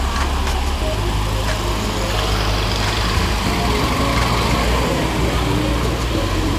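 City street traffic: motor vehicles running past in a steady mixed noise with a low rumble.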